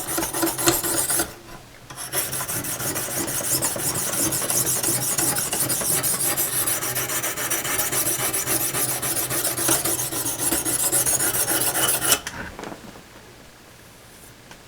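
Fine Lansky hone stone being stroked rapidly back and forth along a steel saw-blade edge, a dry rasping scrape of stone cutting metal. It pauses briefly about a second in, runs steadily for about ten seconds, then stops near the end.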